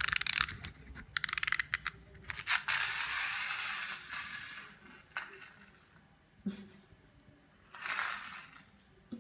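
Clockwork key of a wind-up cat toy being turned: rapid ratcheting clicks in short spells, then a steady rasping whirr for about a second and a half as the wound toy runs. A single knock and a shorter rasp follow near the end.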